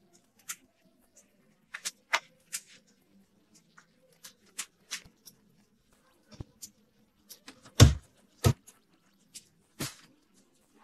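Scattered clicks and light knocks of plastic storage drawers and a pull-out clothes rail on a slide track being handled, with clothes hangers clacking onto the rail. Two louder thumps come a little past the middle.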